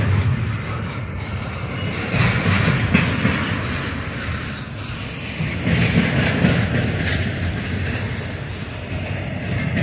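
Double-stack intermodal well cars rolling past: a steady rumble of steel wheels on rail that swells and eases as each set of trucks goes by.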